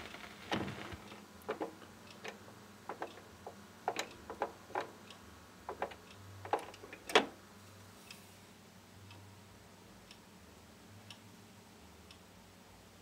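Stylus riding the run-out groove of a spinning 45 rpm vinyl single after the song has ended: scattered surface pops and clicks, the loudest about seven seconds in, giving way to faint ticks about once a second over a low hum.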